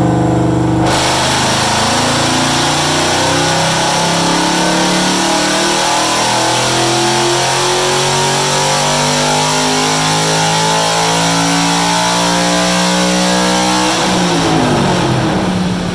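Ford Coyote 5.0 L V8 in a Mustang making a wide-open-throttle chassis dyno pull: the revs climb steadily for about 14 seconds, then the throttle closes and the revs fall away.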